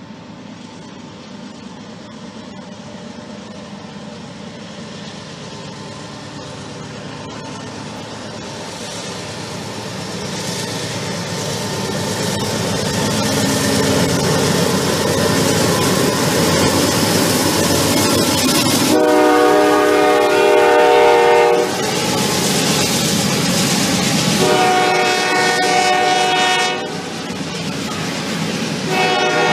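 Norfolk Southern diesel freight train, led by a GE C40-9W locomotive, approaching and passing, its running noise growing louder through the first half and then staying loud as the double-stack intermodal cars roll by. The locomotive's air horn sounds three times: two blasts of about two to three seconds each, and a third that starts near the end.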